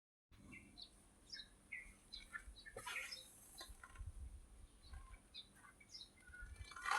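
Small birds chirping faintly in short, scattered chirps, with a soft knock about three seconds in and a faint low rumble underneath.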